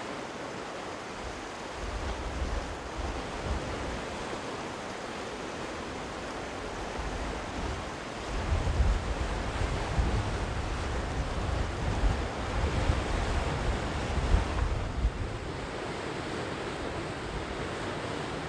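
Sea surf washing steadily onto the shore, with gusts of wind buffeting the microphone as a low rumble about two seconds in and again through the middle of the stretch.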